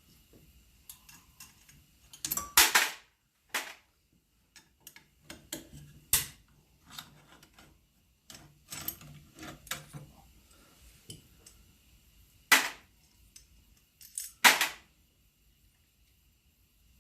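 Metal hand tools and small parts clinking and knocking while a motorcycle's voltage regulator and its wiring are unbolted: scattered light clicks with four sharper knocks.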